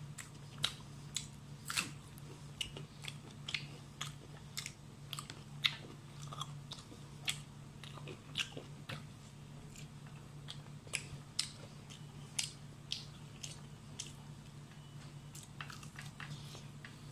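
Close-up eating sounds of a person chewing and biting food picked up by hand: many short, sharp, irregular clicks of mouth noise, over a steady low hum.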